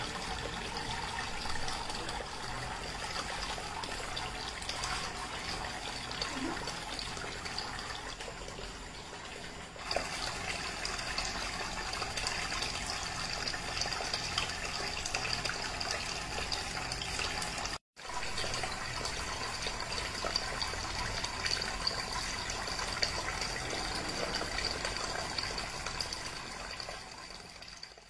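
Water trickling and splashing steadily from a small homemade cement tabletop waterfall fountain, with a brief break about two-thirds of the way through.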